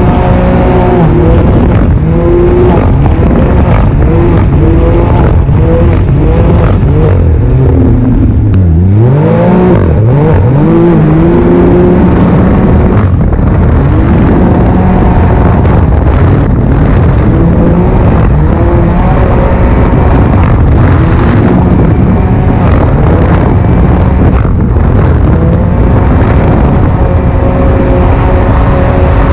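The 2023 Ski-Doo Expedition Xtreme 900 ACE Turbo R snowmobile is running loud at speed. Its turbocharged three-cylinder four-stroke engine breathes through a Straightline Performance trail muffler. The engine pitch rises and falls with the throttle, dropping sharply about eight seconds in and then climbing back up.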